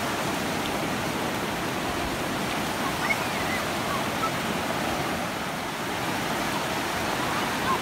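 Surf: small waves breaking and washing up a sandy beach, a steady rushing wash.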